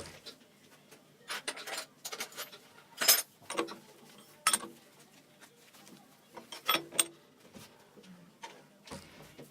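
Metal tools and small parts handled at a lathe, with irregular clinks, taps and clicks and no machine running.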